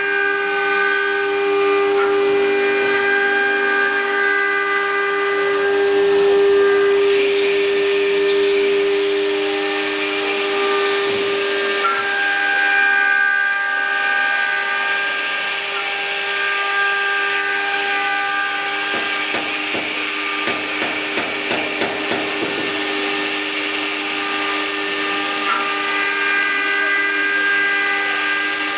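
Multi-spindle 4-axis CNC wood router running, its spindles giving a steady high whine while the cutters carve round wood blanks turning on the rotary axis. A hissing rush of cutting noise swells from about seven seconds in to about fourteen, and a fast run of small ticks comes around twenty seconds in.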